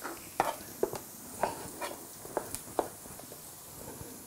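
Chef's knife chopping tomatoes on a plastic cutting board: a series of separate, irregular light knocks as the blade strikes the board.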